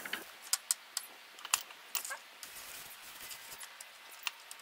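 Light, irregular metallic clicks and clinks of steel pliers and a soldering iron handling a crankshaft thrust half-ring on a ceramic tile, while the ring is being tinned with solder, with a faint hiss underneath.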